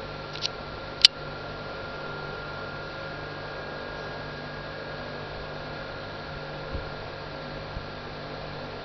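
Steady hum and hiss with a faint high whine, broken by two sharp clicks about half a second and a second in, and two soft knocks near the end.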